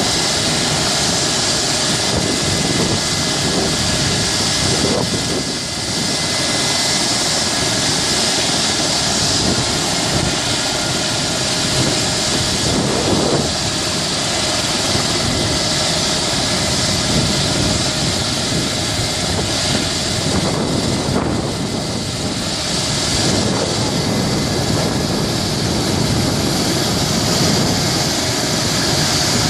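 Helicopter running loudly and steadily: engine and rotor noise with a steady high whine over it.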